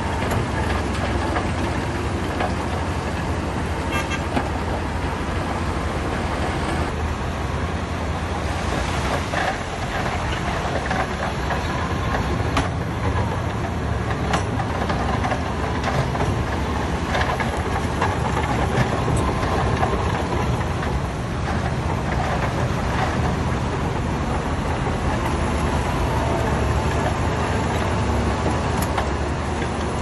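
Heavy earthmoving machinery's diesel engine running steadily under load, with a few sharp clanks in the middle stretch.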